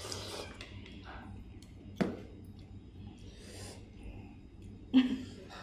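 Quiet eating sounds at a table: noodles being slurped and chewed, with a sharp utensil click about two seconds in and a short knock near the end.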